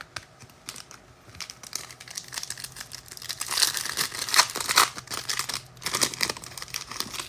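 Foil trading-card pack wrapper being crinkled and torn open by hand, a run of crackling rustles that grows busier and louder about three seconds in.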